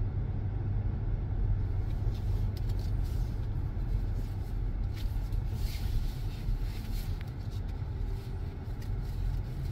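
Hyundai Grandeur Hybrid driving through town: a steady low road and drivetrain rumble, with a few faint clicks in the middle.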